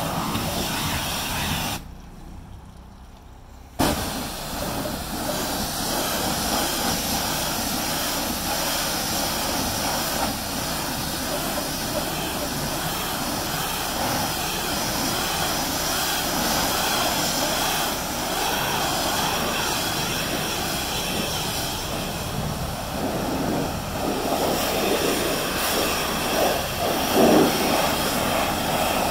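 Pressure washer spraying a steady jet of water against the back of a truck. The spray cuts out for about two seconds near the start and comes back on abruptly.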